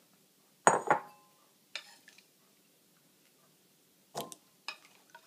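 A ceramic bowl knocks twice onto a tiled counter about a second in, with a short ring. A metal spoon then clinks against the bowl a few times as cucumber cubes and olives are spooned in.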